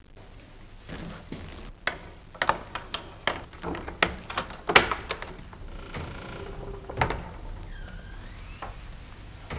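Footsteps on a staircase: an irregular run of sharp knocks and clicks, thickest in the middle, then a single knock. Near the end comes a short high squeak that dips and rises again.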